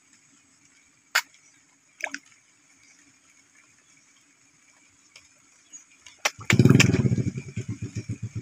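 A small engine starts suddenly about six and a half seconds in and settles into a steady idle, a low rapid beat of about seven pulses a second. Before it there are a few sharp clicks.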